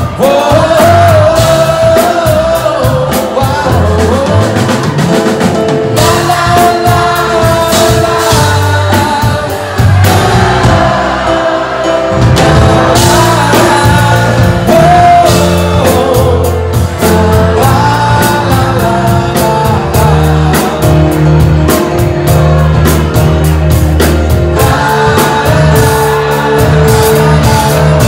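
Live band playing a song: a lead vocal sung over a drum kit, piano and electric guitar, loud and continuous with a steady beat.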